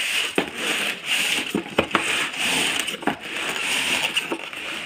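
Polystyrene foam packing blocks and the plastic-wrapped subwoofer scraping and rustling against a cardboard box as they are pulled out, with a few sharp cracks and knocks.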